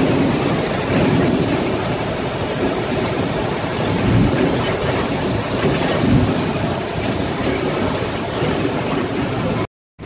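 Open-top safari jeep driving along a rough dirt track: steady engine and road noise with rumble from the open frame. The sound cuts out abruptly near the end.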